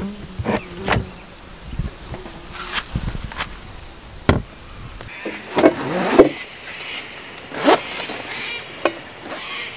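Handling sounds of camping gear: sharp clicks and knocks of a plastic storage tub's snap latches and lid, then, about five seconds in, rustling of a canvas bag and light clatter as gear is unpacked on a metal ute tray.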